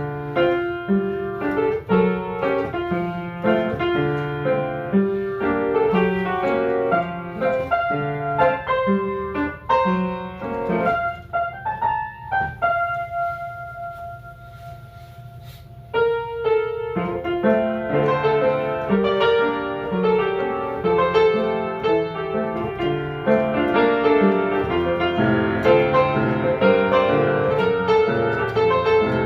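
Piano playing: dense chords and runs, easing about twelve seconds in to a few held notes, then coming back in loudly about four seconds later.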